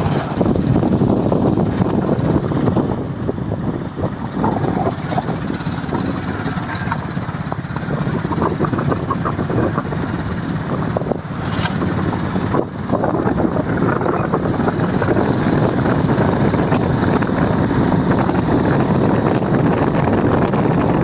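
Motorcycle riding along, its engine mixed with a steady rush of wind on the microphone. A couple of short knocks come near the middle.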